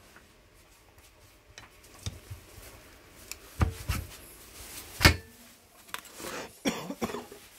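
Metal clicks and knocks from handling a PCP air rifle during assembly, with light rubbing of parts in between. There are a few sharp clicks, the loudest a ringing metallic click about five seconds in.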